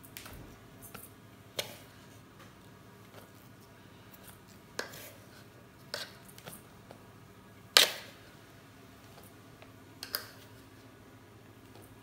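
Plastic scoop and plastic jar clicking and knocking against a stainless steel bowl as calcium powder is scooped and poured onto a scale: several sharp knocks a second or more apart, the loudest about eight seconds in.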